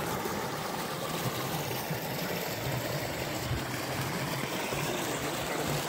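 Shallow stream running over a rocky riverbed, a steady rush of water through a small riffle.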